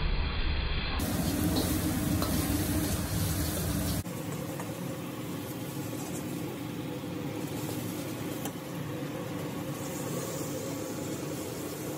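Egg and rice sizzling in a hot wok as a metal wok ladle stirs and scrapes them around the pan. The sound changes abruptly about a second in and again about four seconds in.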